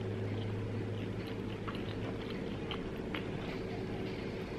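A person chewing a mouthful of pan-fried dumpling, with a few faint small clicks, over a steady low hum.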